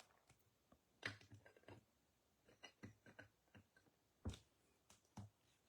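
Faint taps and light clicks of trading cards being handled and set down on a table. There is a cluster in the middle and two firmer taps near the end.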